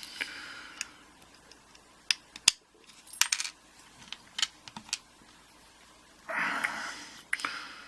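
Small sharp metallic clicks and taps of a tool working the circlip off a dimple euro cylinder lock, with the loudest snap about two and a half seconds in and a brief scraping rustle of handling near the end.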